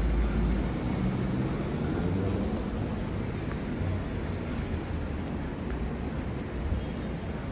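City street traffic noise: a steady rumble of passing vehicles' engines and tyres. There is a heavy low rumble in the first second that then fades.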